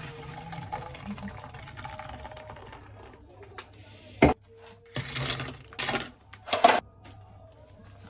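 Fizzy soda poured from an aluminium can into a plastic cup, with a faint hiss of pouring and fizzing. A little after four seconds comes a sharp click, then three short, loud clattering noises.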